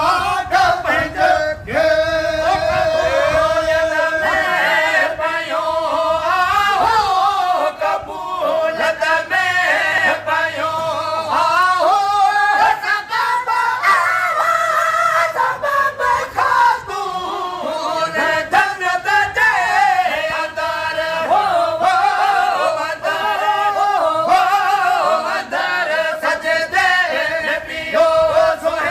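Sindhi molood sung by men's voices together without instruments: a slow, drawn-out devotional melody with long held notes that waver and curl into ornaments.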